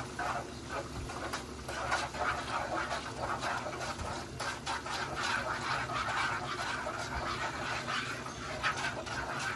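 Butter-garlic sauce bubbling at a boil in a wide pan as it is stirred with a wooden utensil, with a steady run of small pops and crackles.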